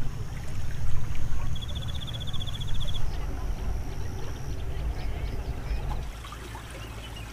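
Outdoor countryside ambience: a steady low rumble under a thin, steady high whine, with a short rapid high trill about one and a half seconds in.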